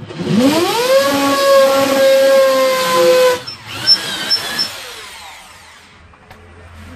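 Handheld electric drill spinning up with a steeply rising whine, then running steadily as it bores a hole into the tabletop. About three and a half seconds in it is let go, and a few short bursts follow as the motor winds down.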